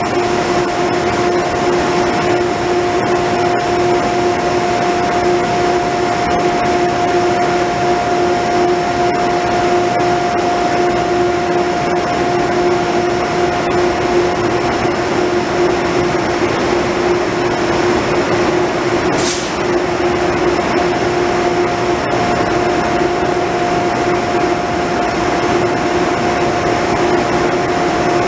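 Steady machinery drone at track level in an underground rail station, with a constant two-note hum. A short, sharp hiss cuts through about two-thirds of the way in.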